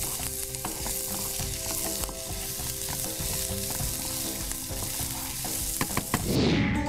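Corn kernels and chopped onion sizzling in a frying pan over a gas flame just turned up high, stirred and tossed, with scattered light knocks from the stirring. A falling whoosh near the end.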